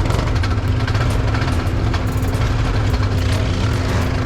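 ATV engine running steadily with a low drone, with frequent short clicks and knocks over it.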